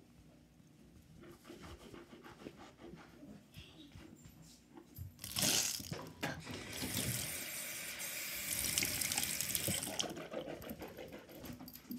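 Bathroom faucet running into the sink, turned on about five seconds in and shut off about five seconds later.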